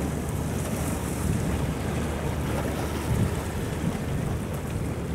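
Wind buffeting the microphone over the steady wash of river water and the low rumble of an inland cargo barge passing under way.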